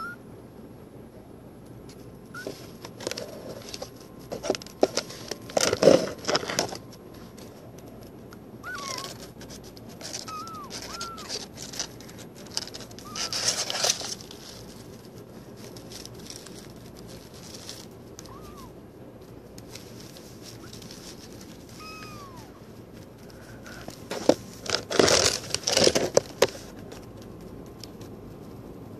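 Shredded paper rustling and crinkling in a cardboard box as a kitten scrambles about in it, in three bouts, with a few faint, short, high chirping calls in the pauses.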